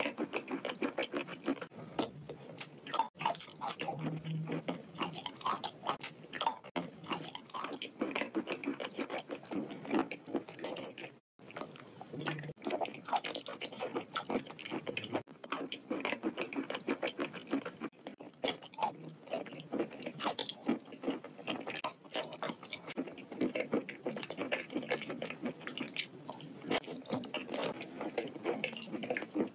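Close-miked chewing and biting of a saucy chickpea and jackfruit curry with rice: irregular mouth clicks and squelchy chewing, with a brief break about eleven seconds in.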